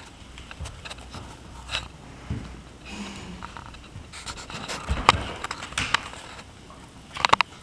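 A dog panting and sniffing close by, with scattered sharp clicks and scrapes, several in a quick cluster near the end.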